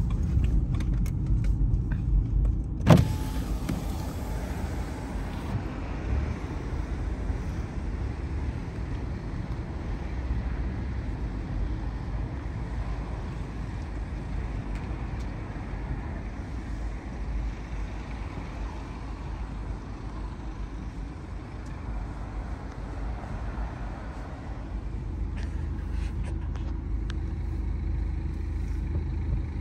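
Car moving slowly, a steady low engine and tyre rumble heard from inside the cabin, with one sharp knock about three seconds in.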